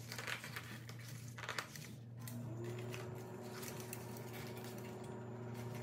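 Faint rustling and light clicks of plastic packaging and a clear plastic suction-cup sponge holder being handled, mostly in the first two seconds, over a steady low hum.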